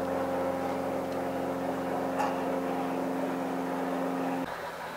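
Steady engine hum at several fixed low pitches, like an engine idling, cutting off suddenly about four and a half seconds in.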